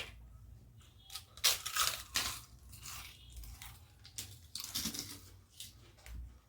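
Close-miked eating: crisp crunching and chewing in clusters of crackly bites, the loudest about one and a half to two and a half seconds in, and again around four to five seconds.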